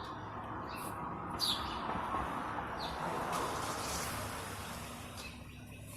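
A small bird chirping: three short, falling high chirps in the first three seconds over a steady background hiss that swells in the middle and fades near the end.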